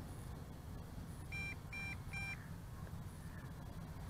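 Faint electronic warning beeps from the MJX Bugs 2W's radio system: three short, evenly spaced high beeps about a second and a half in, and another just at the end. It is the warning that the pilot takes for low battery rather than lost signal.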